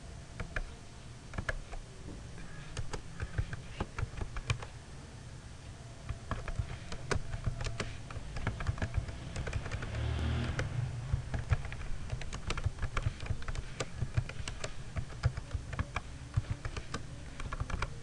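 Typing on a computer keyboard: a run of irregular key clicks, over a steady low hum.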